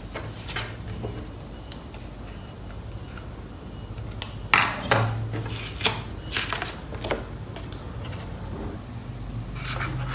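Hard objects being handled and set down: scattered clicks, taps and light knocks, clustered in the middle, over a low steady hum.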